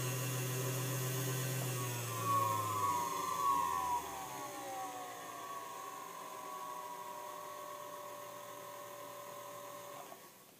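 Singer 221 Featherweight sewing machine motor running and driving the handwheel through its new belt, a steady whirring hum. About two to three seconds in, the pitch falls as it slows to a lower speed. It then runs on more quietly and stops shortly before the end.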